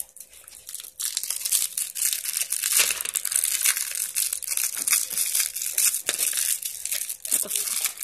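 Plastic candy wrapper crinkling and crackling as it is handled, starting about a second in and going on in a dense run of small crackles.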